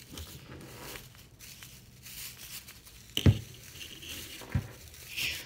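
Rustling and crinkling of a pink tinsel artificial Christmas tree's branches as they are handled and fluffed. There is a sharp thump a little over three seconds in and a softer one about a second later.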